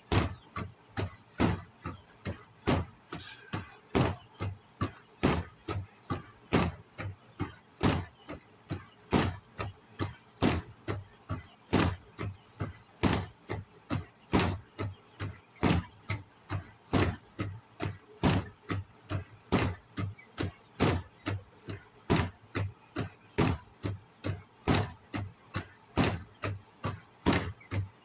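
Sharp knocks repeating steadily, about two a second.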